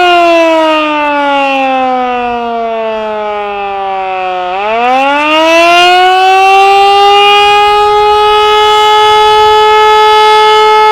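Canadian Model 2 outdoor warning siren sounding the Attack signal. Its loud wail slides down in pitch over about four seconds, climbs back up quickly about halfway through, and then holds a steady high tone.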